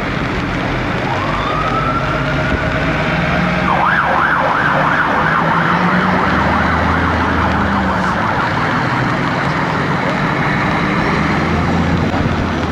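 Emergency-vehicle siren over the diesel engines of heavy rescue trucks driving out. The siren comes in about a second in with a rising wail that holds, then switches to a fast up-and-down yelp of about three cycles a second for a couple of seconds before fading. A steady low engine rumble runs underneath.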